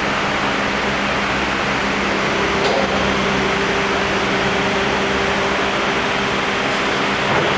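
Electric hydraulic power pack running with a steady hum as it drives the tilt cylinder of a hydraulic scissor lift table, the platform tilting up under power. A second, higher steady tone joins about two seconds in, with a faint click at the same moment.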